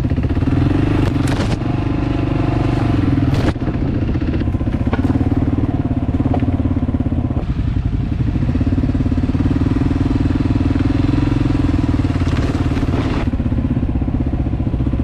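Honda CRF300L Rally's single-cylinder engine running at low, steady trail speed. In the first few seconds there are a few sharp knocks and scrapes as branches brush past the bike.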